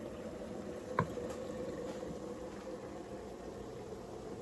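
Steady bubbling of a pot of chicken simmering on the stove, with a single sharp clink about a second in.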